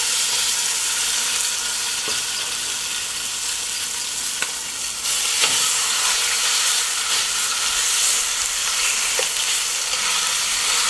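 Ox cheeks sizzling steadily as they sear in a hot cast-iron Dutch oven, with a few faint clicks as metal tongs move the meat.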